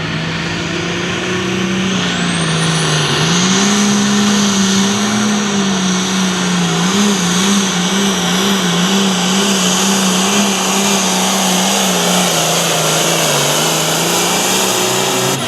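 Hot farm class pulling tractor's diesel engine running hard under load on a pull. Its note climbs about three seconds in, wavers up and down through the middle as the tractor works the sled, then sags near the end.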